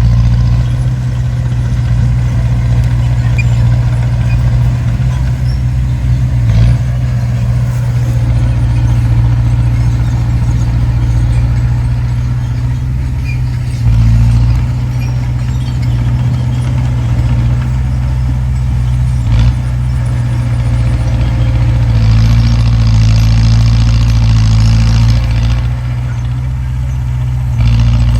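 Engine of heavy earthmoving machinery running steadily, with a couple of sharp knocks and a louder stretch with added hiss about three quarters of the way through.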